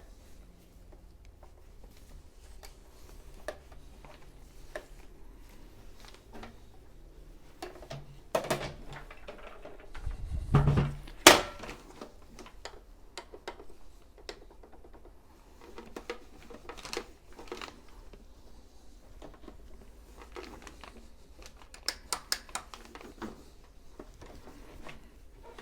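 Handling and wiping noises on a sewing machine's casing: a rag rubbing and many light clicks and knocks of plastic and metal, with a louder thump and then one sharp knock about eleven seconds in.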